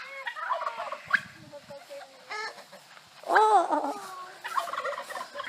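Farmyard poultry calling: chickens clucking and turkeys gobbling, in short, irregular calls.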